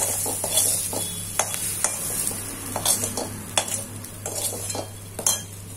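Metal spoon scraping and knocking against a kadhai as half-cooked vegetables are scooped out of it. Sharp clicks come roughly once a second over a light sizzle that dies away.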